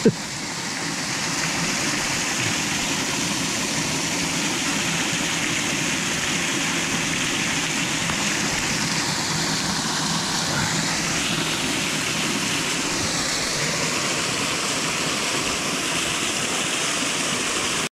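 Mountain stream water rushing over and between rocks, a steady, even rush of water.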